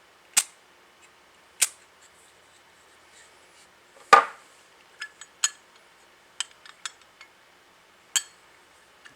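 Sharp metallic clicks and clacks from a polished chrome Zippo Armor lighter being handled, its lid and hinge snapping open and shut. There are about eight of them, the loudest about four seconds in with a short ring, and a quick run of lighter ticks just after.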